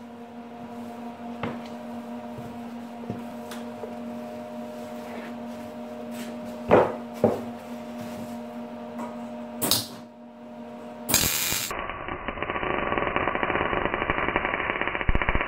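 Esab LKB 265 MIG welder humming steadily at idle, with a few sharp knocks as the rusty steel pipe and torch are handled. About eleven seconds in the arc strikes and the MIG weld crackles densely and steadily on the rusty pipe, sounding dull and muffled.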